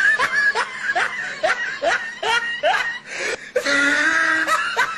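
A person laughing in a quick run of short rising 'ha' sounds, about three a second, breaking into a longer held note about three and a half seconds in.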